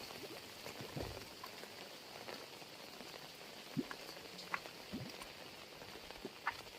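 Heavy rain falling: a steady hiss with scattered sharper drop impacts.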